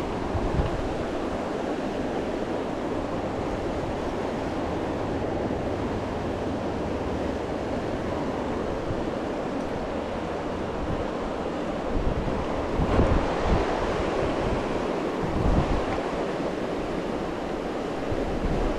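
Fast river water rushing over rocks in a steady noise, with a few gusts of wind on the microphone adding low rumbles just past the middle.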